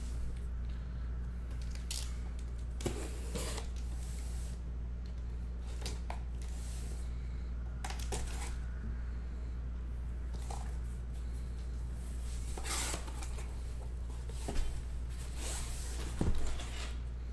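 Cardboard shipping case being handled and opened: scattered scraping, rustling and tearing of cardboard and packing tape, with two louder knocks near the end, over a steady low hum.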